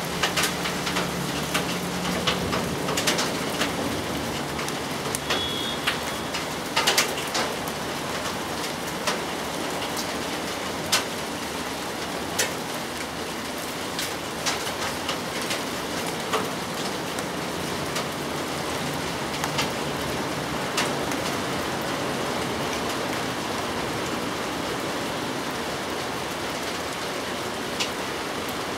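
Steady rain falling, with frequent sharp drops striking a hard surface close by.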